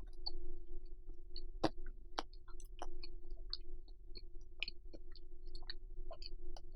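Close-miked chewing of bacon-wrapped rice cakes: irregular wet mouth clicks and smacks, several a second, over a faint steady hum.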